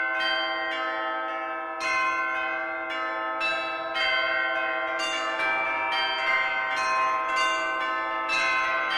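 Church bells pealing: strike follows strike about once or twice a second, each leaving long, overlapping ringing tones.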